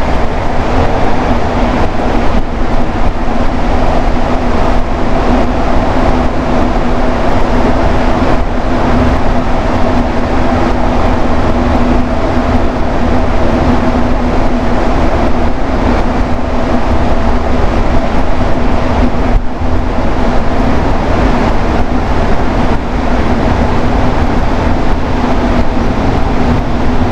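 Rubber-tyred Montreal metro train running at steady speed, heard from inside the car: a loud, even rumble with a steady hum that holds its pitch throughout.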